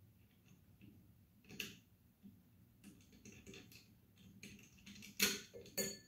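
Light clicks and knocks of hardware being handled as a train horn's mounting post is slid into its bracket slot and lined up by hand, with a knock about a second and a half in and two sharper clacks near the end.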